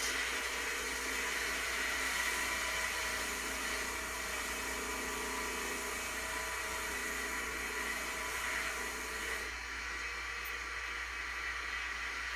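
A small electric tool runs steadily with an even, hissing whir while rust is cleaned off the metal parts of an old percussion gun.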